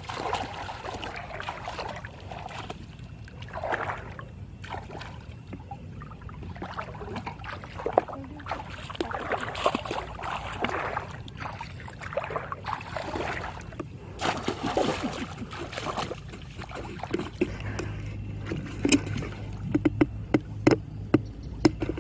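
Water splashing and sloshing in irregular bursts. A steady low hum comes in about three-quarters of the way through, and several sharp knocks follow near the end.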